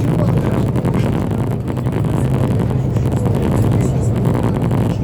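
Steady low engine drone with a rushing noise, heard from inside a moving vehicle.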